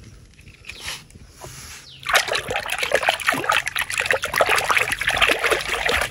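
A hand splashing and churning through a plastic tub of water, fishing around for a toy. The splashing starts about two seconds in and goes on as rapid, continuous sloshing.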